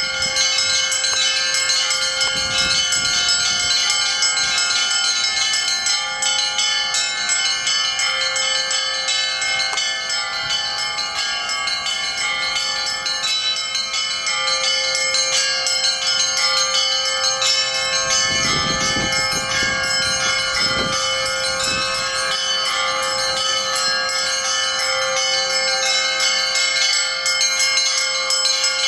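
Russian Orthodox church bells ringing: many smaller bells struck in quick, continuous succession over a sustained deeper ringing tone.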